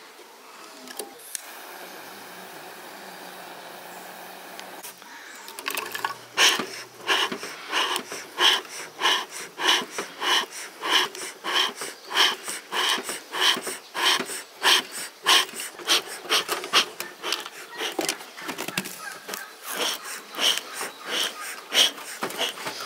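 Bee smoker's bellows squeezed over and over, each stroke a short puff of air through the smouldering fuel, about two a second, to get the fire going and raise smoke. Before the pumping starts, a steady hiss for a few seconds.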